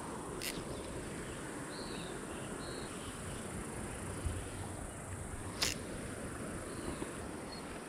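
Steady outdoor ambience: a continuous high insect drone over a broad steady hiss, with a sharp click about half a second in and another at about five and a half seconds.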